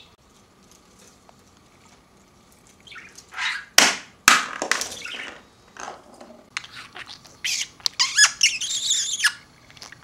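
Budgerigar chirping and chattering in short high-pitched bursts, starting about three seconds in, with a rapid warbling run near the end. There are two sharp knocks about four seconds in.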